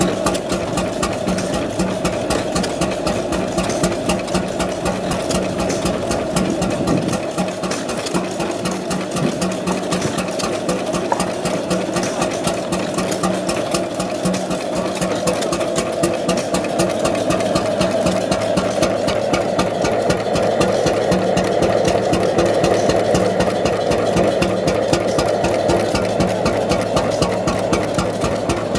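Mietz & Weiss two-stroke oil engine running steadily, with a fast, even beat.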